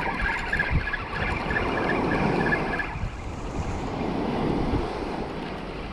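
Wind buffeting the microphone over waves breaking on the beach, with a rapid string of faint high pips in the first half that stops about three seconds in.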